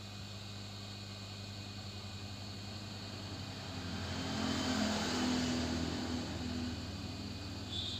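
A motor vehicle's engine sound swells, loudest about halfway through, then fades, over a steady low hum.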